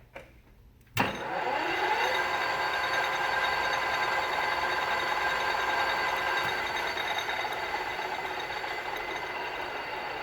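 Mori Seiki MH-3000 engine lathe starting up: a small click, then about a second in a sudden clunk as the spindle drive engages. A whine rises in pitch over the next second and settles into a steady running whine with gear noise.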